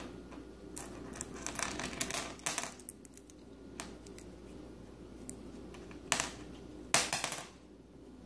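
Screwdriver bits clicking and clattering against a stone countertop as a hand picks them up: a run of light clicks in the first few seconds, then two louder clacks, the second a short rattle, near the end.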